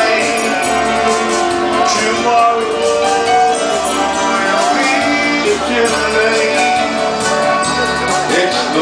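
Band music: a sustained melody line over steady accompaniment, mostly without singing.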